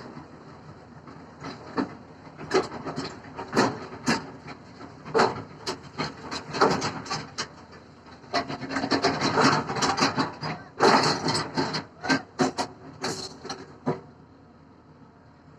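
Hyundai excavator's bucket scraping and knocking through earth and stones: a run of irregular, loud scrapes and knocks, densest in the middle, that stop shortly before the end.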